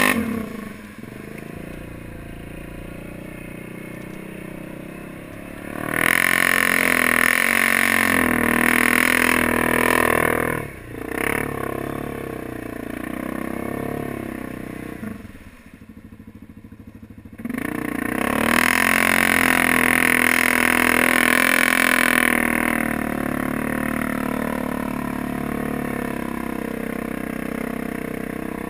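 Yamaha Grizzly 700 ATV's single-cylinder engine being throttled through deep water. It opens up hard about six seconds in and again around eighteen seconds, and falls away almost to nothing in a brief lull around fifteen to seventeen seconds.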